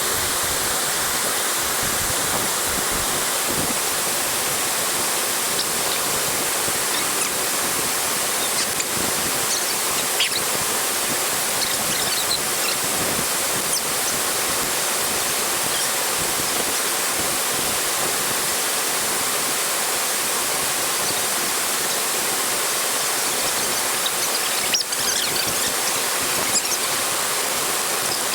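Steady rush of a waterfall's falling water, close and even throughout. A few faint short high squeaks come through over it now and then.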